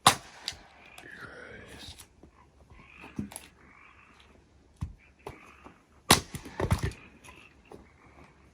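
A string of sharp knocks and clunks from hard objects being handled, loudest right at the start and again about six seconds in, with quieter scraping and rustling between.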